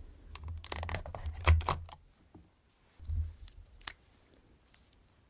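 A plastic mini lipstick tube being lifted out of its cardboard kit box: a run of quick plastic clicks and handling thumps, another thump about three seconds in, and one sharp click just before four seconds.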